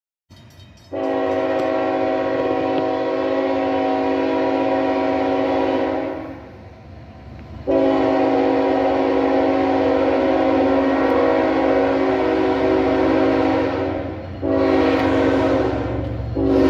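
Locomotive multi-chime air horn sounding a grade-crossing signal: two long blasts, a short one, and the start of a final long one near the end, over the low rumble of a passing freight train.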